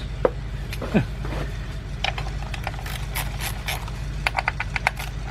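Metal hand tools clicking and clinking as sockets are rummaged through, in quick runs of sharp clinks from about two seconds in, over a steady low hum.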